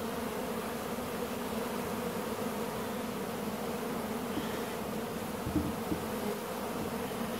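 Steady buzzing of a crowd of Carniolan honeybees swarming over the open top of a hive, an even low drone, with a couple of faint knocks about five and a half seconds in.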